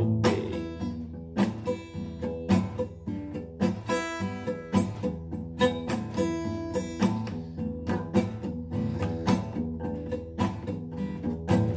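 Acoustic guitar played solo in an instrumental passage, strummed and picked in a steady rhythm.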